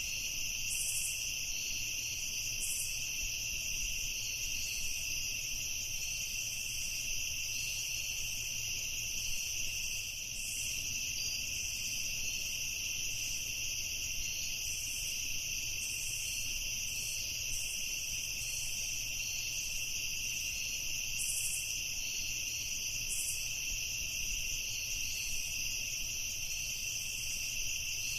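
Night chorus of crickets and other insects, a continuous steady high trilling with scattered brief higher chirps over it.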